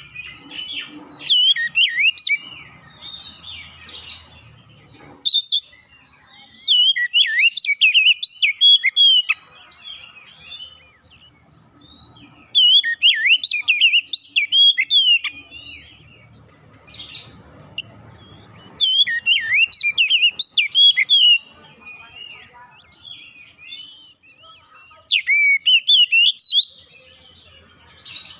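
Oriental magpie-robin singing loud bursts of rich, varied whistled phrases. There are about five bursts, each a few seconds long, with short pauses between them.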